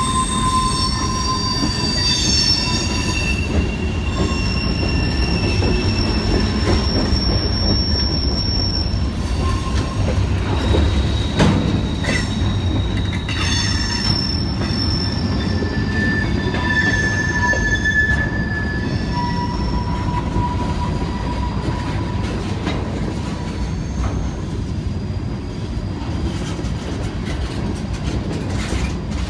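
Freight cars of a CN manifest train rolling past on curving track. Steady low rumble of wheels on rail, with thin high wheel squeals that come and go, mostly in the first two-thirds. One sharp clank about eleven seconds in.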